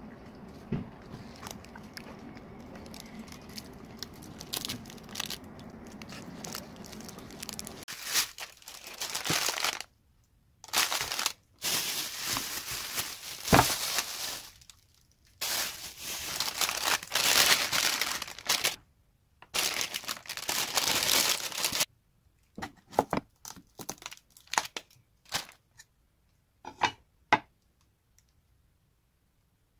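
Plastic bag rustling and crinkling in loud, broken stretches as a bag of king oyster mushrooms is handled, followed by a run of scattered light knocks on a wooden cutting board.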